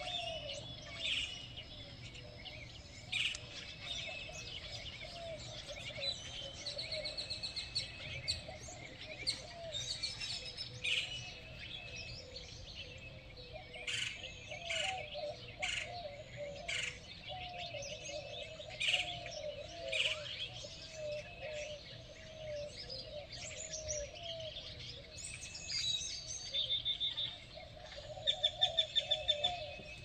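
Morning chorus of several wild songbirds: overlapping chirps, rapid trills and whistled calls, with a lower, wavering call running beneath much of it.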